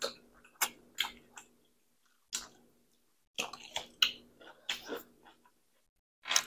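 Close-miked eating sounds: short wet slurps of 2x spicy noodles and bites and chewing of a honeydew melon slice, a dozen or so brief noises with quiet gaps between them.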